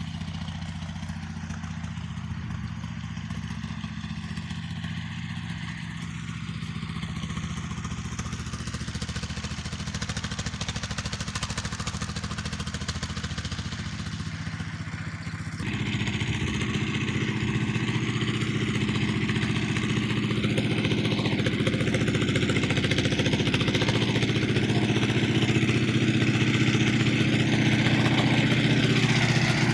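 An engine running steadily at an even speed. About halfway through it suddenly gets louder and keeps slowly rising.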